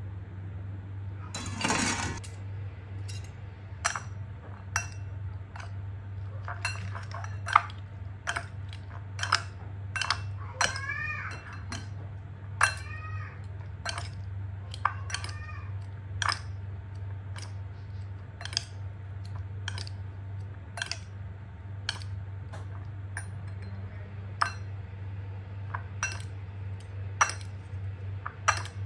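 Metal fork and spoon clinking and scraping against a ceramic bowl while instant fried noodles are mixed with their seasoning, in short irregular clinks, over a steady low hum.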